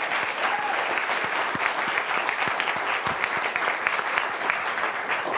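A studio audience applauding steadily, with a brief whoop about half a second in.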